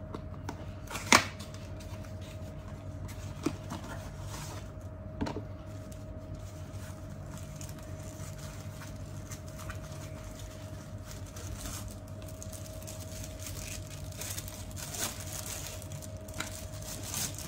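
Handling noise as a small box is opened and a 2x teleconverter is taken out and handled in its plastic bag: a few sharp clicks and soft plastic rustles, the loudest click about a second in, over a steady faint hum.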